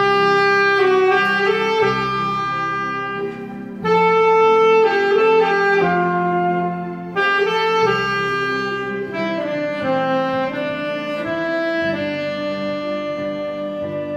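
Saxophone playing a slow melody in held, legato phrases over a steady backing accompaniment; new phrases start about four, seven and twelve seconds in.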